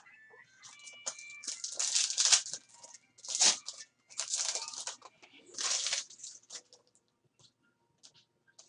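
Trading cards and pack wrappers being handled: four short papery swishes and rustles, as cards slide over one another, then a few faint ticks.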